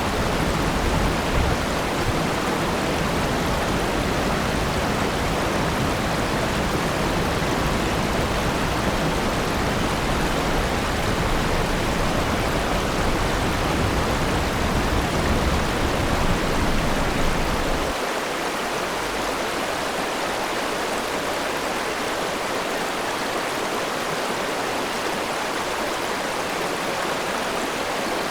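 River water flowing over stones, a steady rushing and babbling. About two-thirds of the way in, the deep low rumble drops away and the rush goes on a little quieter.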